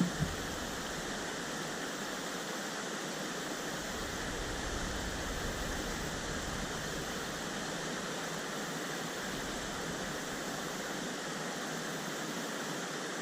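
Steady rush of river rapids, an even hiss of moving water, with two brief knocks right at the start.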